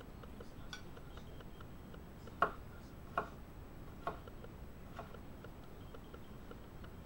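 Condor Nessmuk knife slicing a radish on a wooden cutting board. Four sharp knocks of the blade cutting through to the board come about a second apart, starting about two and a half seconds in.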